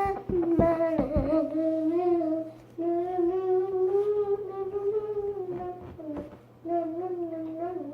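A young girl humming a wordless tune in long held notes that waver slightly, with two short breaks for breath. A few light knocks come in the first second or so.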